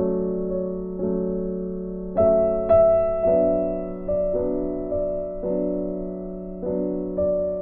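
Background piano music: slow, gentle notes and chords struck about once a second, each ringing and fading away.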